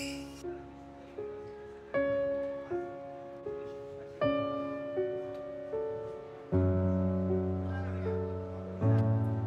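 Background piano music: slow, gentle single notes and chords, with deeper bass notes coming in about two-thirds of the way through.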